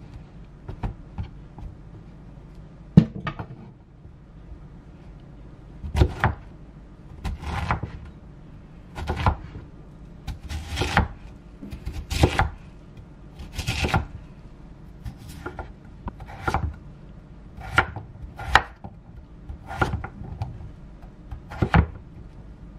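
Chef's knife cutting firm raw vegetables (zucchini, Korean radish, potato) on a wooden cutting board: irregular strokes, each a crunch through the vegetable ending in a knock on the board. Light taps and one sharp knock first, then steady cuts about once a second from about six seconds in.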